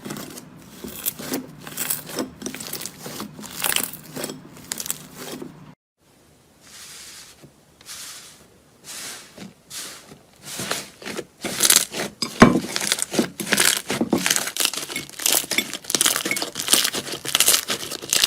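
Slime being pressed and stretched by hand, giving runs of crackling, crinkly pops. The sound stops briefly about a third of the way in, then comes back softer and grows louder and busier, with one sharp click partway through.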